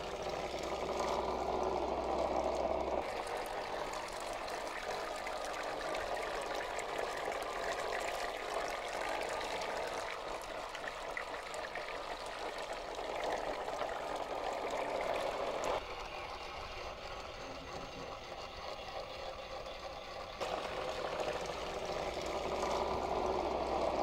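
Water churning and splashing from the small propellers of a homemade remote-control river-cleaning boat. The sound is steady and changes level abruptly a few times.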